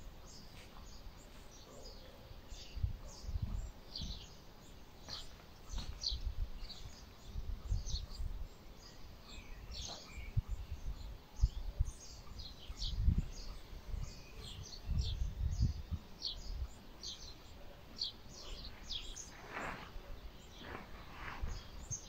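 Small birds chirping repeatedly in short, high calls, with a longer, lower call near the end. Irregular low rumbles, which are the loudest sounds, come and go underneath.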